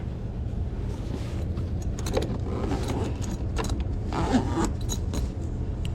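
Clicks, rattles and jangles of gear being handled, over a steady low hum.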